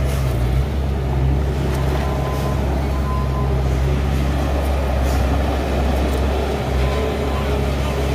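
A machine running steadily: a loud, low hum with an even hiss over it.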